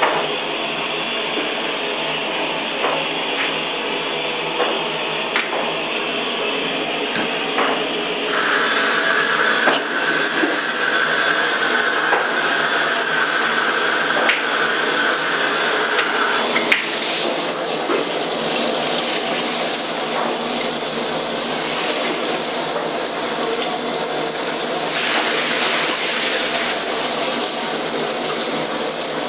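Handheld shower head spraying water onto a tiled shower floor, a steady hiss and splash. About eight seconds in the spray gets louder, with a steady high whistle for about eight seconds.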